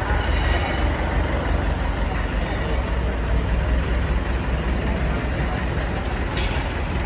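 Steady low hum and rumble of a ribbon blender's electric motor and belt drive running, with a brief sharp clink about six seconds in.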